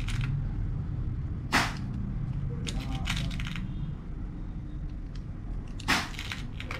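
Small, sharp clicks of pellets being pressed one at a time into the 16-shot rotary magazine of a blowback air pistol: one click about one and a half seconds in, a short cluster near the middle, and another near the end, over a low steady room hum.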